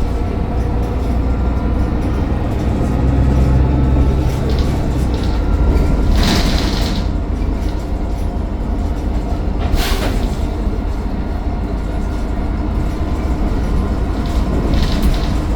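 Mercedes-Benz Citaro O530 bus running with a steady low engine drone and faint thin whining tones above it. Two short hisses come about six and ten seconds in.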